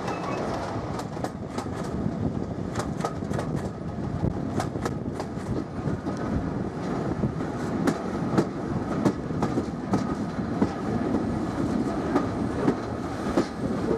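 Railway carriage running on jointed track: a steady rolling rumble with sharp clicks in quick groups as the wheels pass over rail joints, heard from inside the moving coach.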